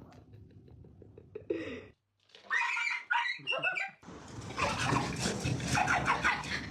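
A pet animal's wavering, high calls after a cut about two seconds in, getting louder and noisier from about four seconds; before the cut, only a faint low hum with small clicks.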